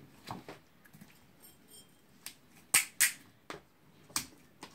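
Handling noises on a desk: a few short, sharp plastic clicks and crinkles as packaging is moved aside and a plastic bottle is picked up. There are two louder clicks in quick succession about three seconds in.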